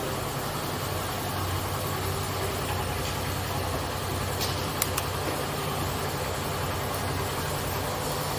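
Motorcycle engine idling steadily, with a few short, sharp clicks about four and a half to five seconds in.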